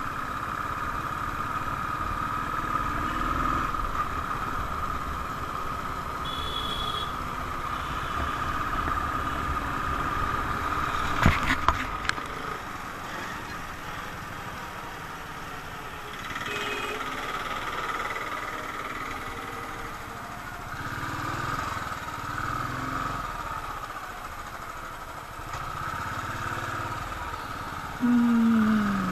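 Motorcycle engine running at road speed, heard from the rider's seat with low wind rumble and surrounding highway traffic. A sharp knock comes about eleven seconds in, and near the end a louder sound falls in pitch.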